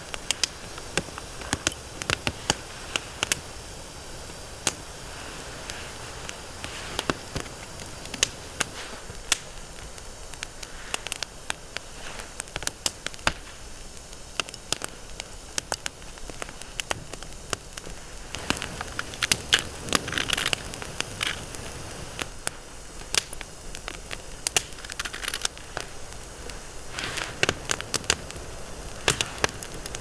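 Wood campfire crackling, with irregular sharp pops over a steady soft hiss and a denser run of pops about two-thirds of the way through.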